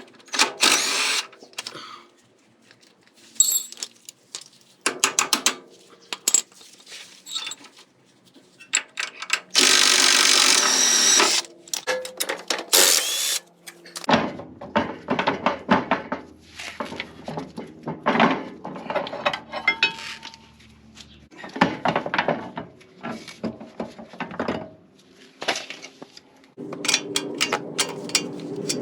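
Metal tools clinking and clanking during work on a car's front suspension, with one steady burst of about two seconds from a power tool about ten seconds in.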